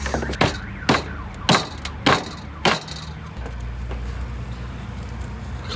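Five sharp knocks, evenly spaced about half a second apart, over a steady low hum.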